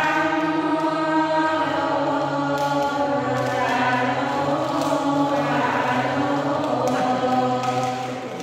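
Voices chanting a Buddhist prayer in long, steady held tones, dropping away briefly near the end as if for breath.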